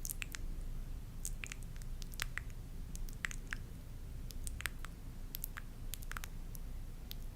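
ASMR trigger sounds: irregular short clicks and crackles, a few each second, over a low steady hum.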